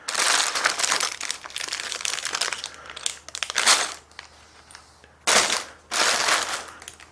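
Crinkling and crunching of loose paper, cardboard and plastic being disturbed, in rustling bursts over the first four seconds, then a short sharp burst about five seconds in and another just after.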